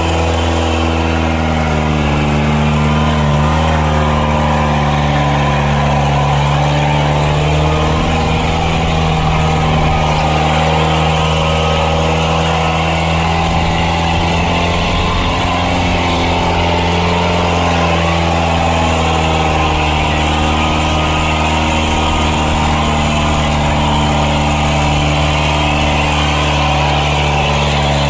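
Kubota 55 hp tractor's four-cylinder diesel engine working hard and steady under heavy load, dragging a trailer heaped with soil through soft ploughed ground; the pitch holds nearly level, with only slow small shifts.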